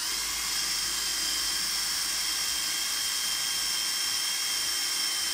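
Cordless drill running at a steady speed with a steady high whine, its center drill boring into the broken-off end of a screw to make a centered starter hole.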